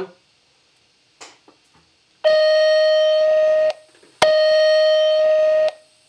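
Gentex SSPK24WLPW fire alarm speaker sounding two long steady alarm tones, each about a second and a half, with a short gap between them and a click as the second one starts. This is the opening of a Simplex voice evacuation test message played through the speaker.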